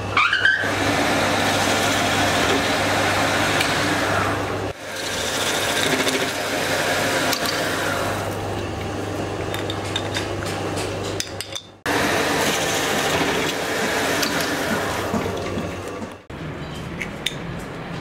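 Metal lathe running and cutting metal: a noisy cutting sound over the steady hum of its motor. The sound breaks off sharply three times, at about 5, 12 and 16 seconds.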